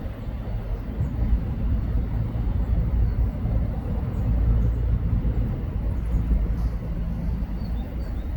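Steady low rumble with a few faint, short, high chirps over it.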